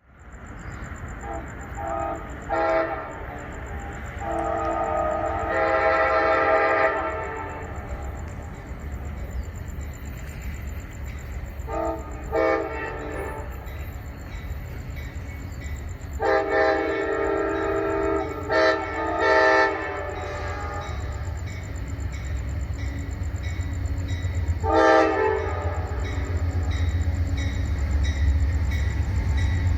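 Nathan K5LA five-chime air horn on an Amtrak P42DC locomotive, played as a horn show: a string of short toots and longer chord blasts, some broken into pieces, spread through. Beneath it a low locomotive rumble grows louder toward the end as the train draws near.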